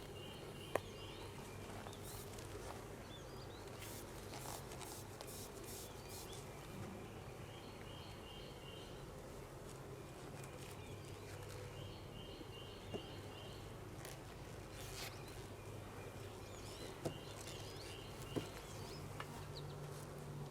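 Honeybees humming steadily around an opened hive, with a few sharp clicks about a second in and again near the end.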